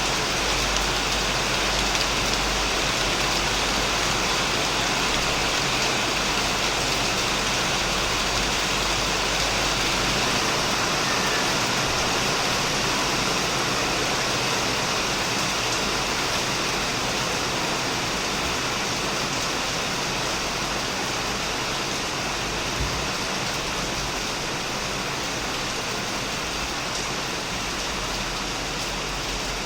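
Heavy rain falling steadily on a shed roof and surrounding plants, an even, dense hiss of drops.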